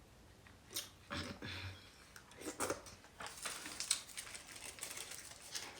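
Close-up mouth sounds of a person eating soft food (fufu, oxtail and rice): chewing with scattered small clicks and smacks, sparse at first and busier over the second half.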